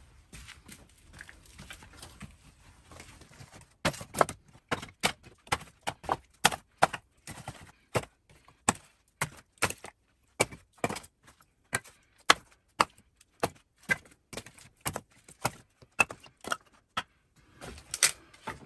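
Pieces of scrap wood knocking and clattering as they are picked by hand from a pile. Faint shuffling at first, then from about four seconds in a run of sharp, irregular knocks, about two or three a second.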